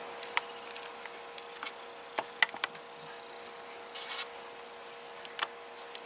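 Hands handling large, glossy bird's nest fern leaves: a few soft clicks and taps and a brief rustle about four seconds in, over a steady faint hum.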